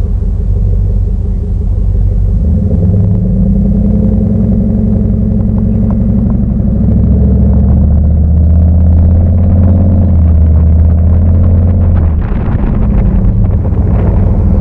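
Pontiac Grand Prix GXP's 5.3-litre LS4 V8 exhaust while driving, a deep steady drone. The engine note climbs slowly for several seconds, then drops sharply about twelve seconds in and carries on lower.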